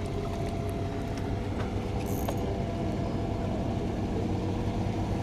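A boat's engine running steadily with an even low hum.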